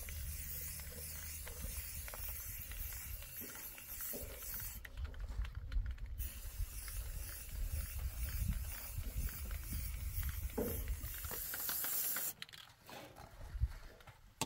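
Steady wind noise on the microphone: an even hiss over a low rumble, which drops away sharply about twelve seconds in.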